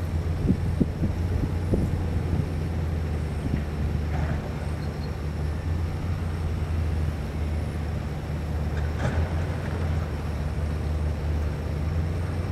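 A steady low engine drone holding one even pitch throughout, over faint background hiss.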